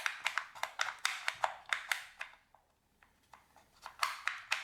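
Wooden puzzle box being closed: a run of light clicks and taps from its wooden parts, several a second, then a pause and a few more clicks near the end.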